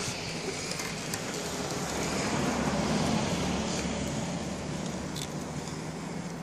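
A Toyota Chaser slowly towing a cart of roped logs on small skateboard and furniture wheels over asphalt. The car runs under a steady rumble of wheels on the road, which swells about halfway through, with a few light clicks of the load rattling.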